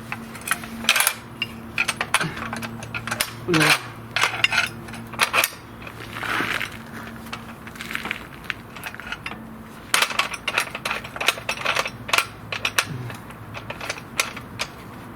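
Cut pieces of steel pipe clinking and clattering as they are handled and set down: a string of sharp, irregular metal knocks, over a faint low hum.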